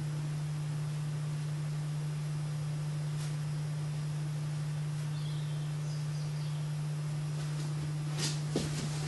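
A steady low hum with faint background hiss, broken by a single faint click about three seconds in and a few more clicks near the end.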